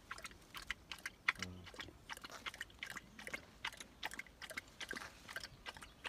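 A Bhote (Himalayan guardian) dog chewing food, a quick, irregular run of crunching clicks.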